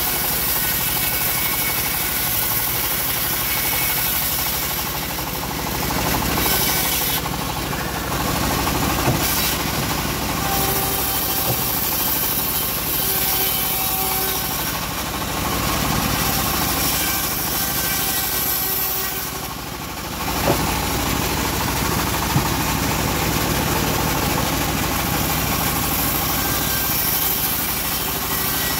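Homemade bandsaw mill running steadily while its blade rips a teak plank lengthwise into battens. A few short, sharp knocks stand out, about a third of the way in and twice later on.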